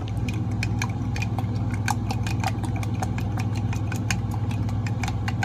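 Truck engine idling with a steady low hum, under quick irregular clicks and taps of a fork stirring beaten eggs and cheese in a tall coffee mug.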